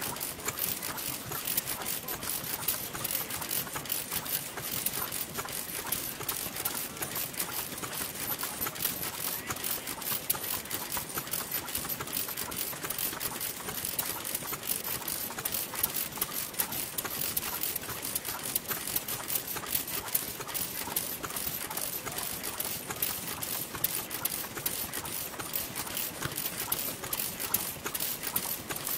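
Noda stationary petroleum engine running steadily, with a rapid, even mechanical clicking from its running gear.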